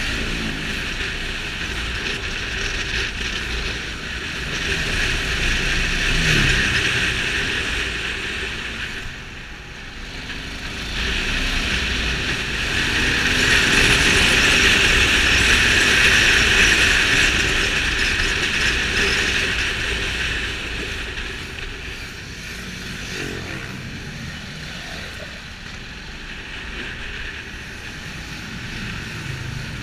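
Ducati Multistrada 620's air-cooled V-twin running under way, heard from the rider's seat. Its revs rise and fall a few times, under a loud rushing noise that swells to its loudest about halfway through.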